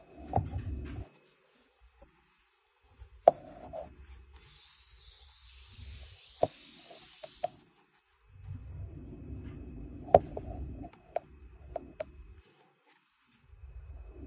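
Handheld metal radiation detectors being handled and slid over a tabletop: rubbing scrapes with a few scattered sharp clicks and taps, and a brief hiss in the middle.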